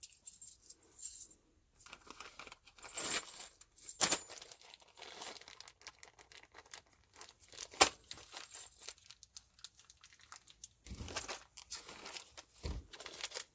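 Small plastic bags crinkling as they are handled, with scattered clicks and one sharp click about eight seconds in.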